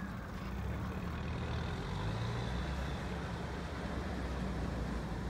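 Amphibious bus's engine running steadily as it drives through shallow river water, getting louder about a second in.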